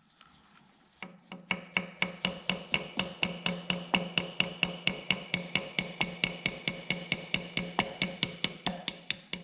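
Small brass-faced hammer tapping lightly and steadily, about four taps a second, starting about a second in, to drive a half-moon retention piece into the housing of a Christen drill grinder.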